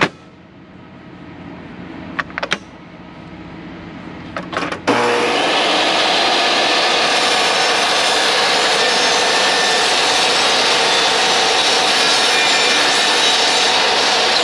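A few light clicks, then about five seconds in a jobsite table saw starts suddenly and runs steadily and loudly while cutting notches in a piece of plywood.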